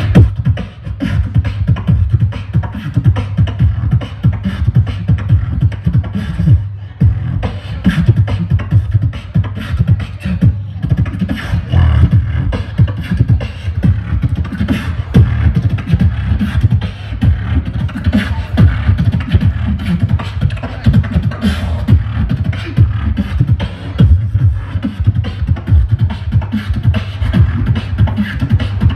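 Solo human beatboxing into a handheld microphone, amplified through a stage PA: a steady, fast rhythm of deep kick-drum booms with sharp snare and hi-hat clicks made with the mouth.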